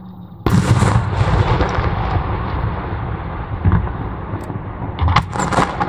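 Japanese aerial fireworks shell bursting with one loud boom about half a second in, followed by a long rolling echo that slowly dies away. A cluster of several sharp bangs follows about five seconds in.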